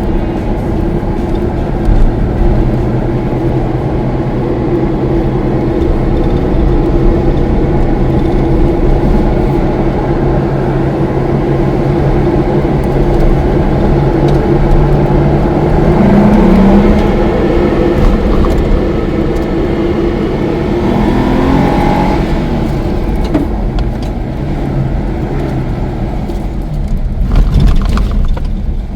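Car engine and road noise heard from inside the cabin while driving; the engine note rises twice around the middle as it picks up revs.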